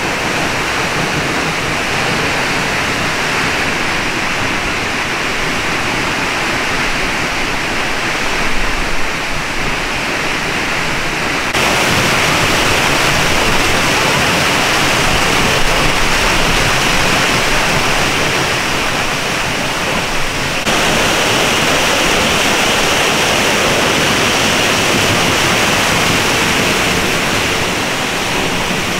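Steinsdalsfossen waterfall crashing down close by, a loud steady rush of falling water. It jumps abruptly louder and brighter about a third of the way in.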